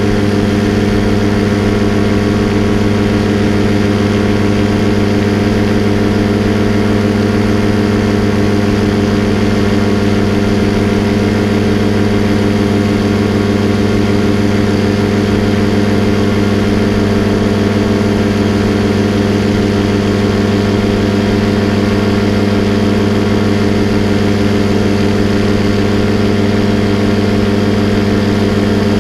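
Paramotor engine and propeller running at a steady cruise throttle in flight, a loud, even drone that holds one pitch throughout.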